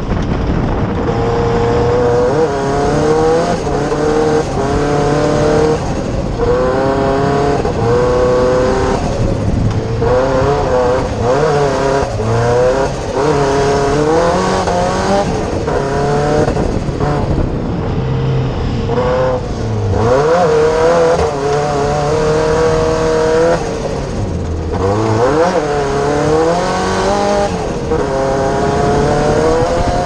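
Cosworth engine of a four-wheel-drive Fiesta Proto off-road racer, heard from inside the cockpit, revving hard under racing load. Its pitch climbs and drops again and again as the driver shifts gears and lifts off, with a few short lifts along the way.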